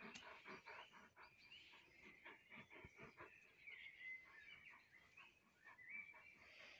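Faint, quick high-pitched chirps and squeaks, some gliding up or down in pitch, with scattered soft clicks.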